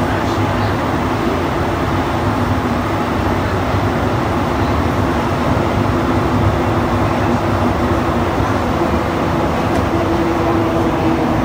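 Montreal Metro MPM-10 (Azur) rubber-tyred train running through a tunnel, heard from inside the car: a steady, loud rumble with a low, even humming tone.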